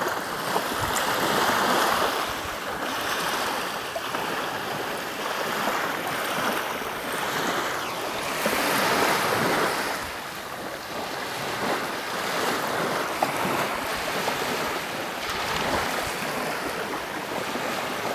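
Small surf washing up and back on a sandy beach, the hiss of the water swelling and fading every few seconds.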